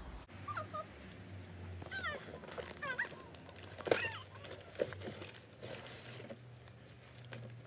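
A pet animal giving several short, high-pitched whines while a cardboard box is opened and rummaged through, with a sharp knock about four seconds in.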